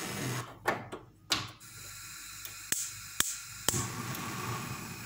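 Sounds from a frying pan on the stovetop: a steady hiss, two knocks about a second in, then three sharp clicks about half a second apart.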